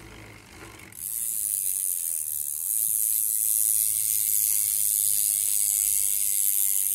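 Mountain bike rear freehub ratcheting, its pawls clicking so fast that they blur into a steady, high buzz. It starts about a second in.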